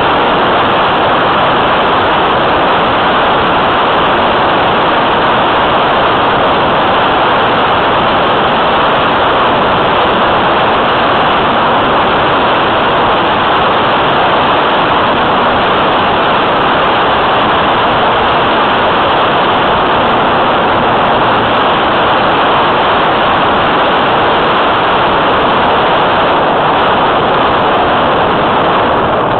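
Loud, steady rush of airflow noise picked up by a camera riding on a Multiplex Tucan radio-controlled model plane in flight, an even hiss with no clear motor tone.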